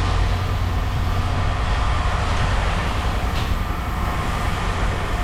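A large engine running steadily with a low, even rumble.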